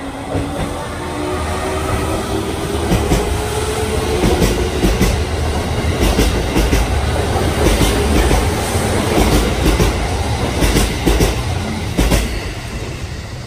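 JR 373-series electric multiple unit running past along the platform, its traction-motor whine rising in pitch as it picks up speed over a heavy rumble. Its wheels clack over rail joints from about three seconds in, with the loudest clack near the end as the last car goes by.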